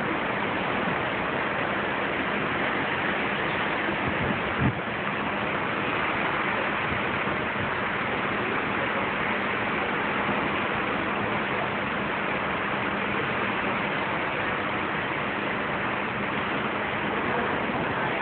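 Steady rushing noise of the cruise ship's wake water and wind at sea, with a faint low hum under it. There is a single soft knock about four and a half seconds in.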